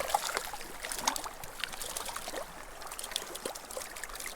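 Small mountain creek burbling and trickling over rocks, with many quick little drips and plinks.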